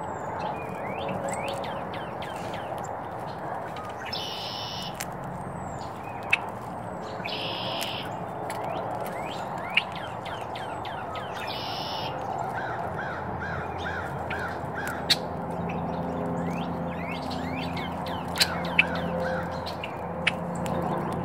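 Wild birds calling around a feeder: many short chirps, a harsh squawking call repeated four times about three seconds apart in the first half, and a run of six quick notes partway through. Several sharp clicks or knocks stand out over the birdsong.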